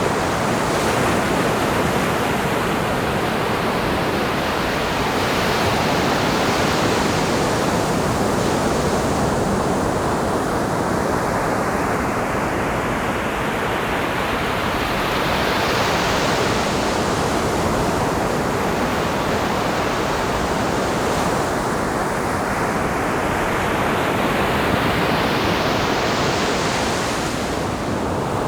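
Ocean surf on a beach: a continuous rush of breaking waves, each wave surging in with a brighter hiss about every six seconds and then washing back.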